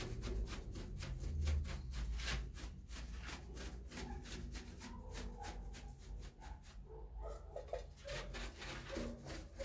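Paintbrush bristles scrubbing a dark finish onto a carved wooden relief panel, a fast run of short scratchy strokes, several a second.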